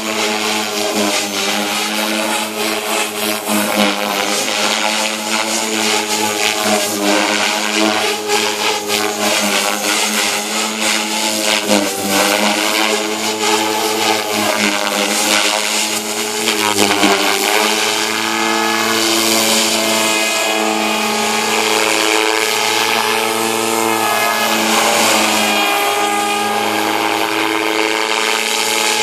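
Devil 420 radio-controlled helicopter flying 3D aerobatics: a loud, steady whine of its motor and spinning rotor blades. The pitch wavers up and down with the manoeuvres, over a rushing hiss of air.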